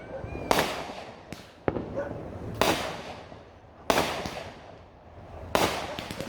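Fireworks going off: about six sharp bangs, irregularly spaced one to two seconds apart, each trailing off over a second or so.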